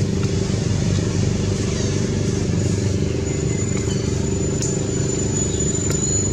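An engine running steadily, a low even hum, with faint high chirps over it and a thin high whistle starting about halfway through.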